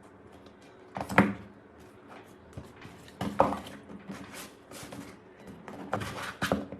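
Irregular knocks and clicks of hard objects being handled and set down, the louder ones about a second in, around three and a half seconds in and near the end.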